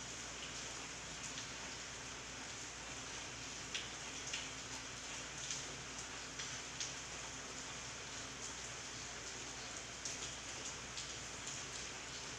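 Steady rain falling on garden leaves, with a scattering of louder drops tapping close by, several of them from about four to seven seconds in and again around ten seconds.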